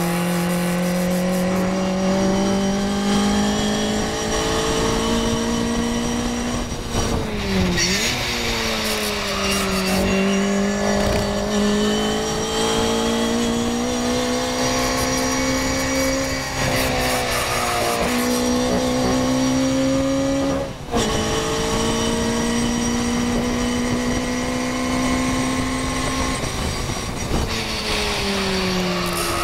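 A Morgan race car's small engine running hard under racing load, heard from on board over a steady rush of noise. The engine pitch climbs slowly and dips and recovers several times as it changes gear, most sharply about seven seconds in and again about two-thirds of the way through.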